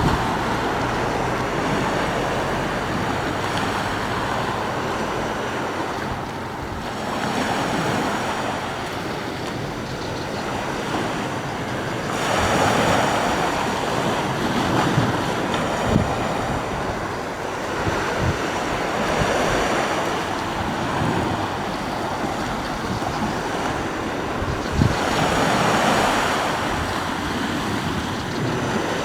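Sea waves breaking and washing on the shore, swelling every few seconds, with wind rumbling on the microphone. Two short sharp knocks stand out, about halfway through and near the end.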